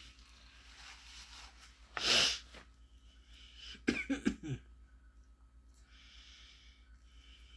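A man's sharp, noisy burst of breath about two seconds in, followed a couple of seconds later by a quick run of several short coughs.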